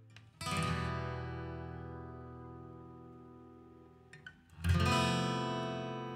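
Background music on acoustic guitar: two strummed chords, one about half a second in and another near five seconds, each left to ring and fade.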